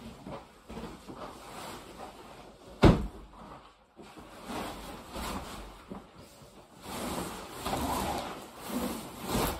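Insulated fabric of a pop-up hub ice shelter rustling and flexing as its walls are pushed out from inside, with a loud sharp snap about three seconds in and another near the end as the hub panels pop into place.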